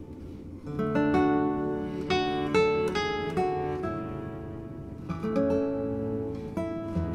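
Instrumental background music of plucked, guitar-like string chords, each struck and left to ring.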